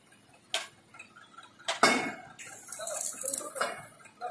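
Sharp metallic clinks and knocks from steel tank-shell erection work, steel striking steel a few times, the loudest just under two seconds in. A high hiss follows it for about a second.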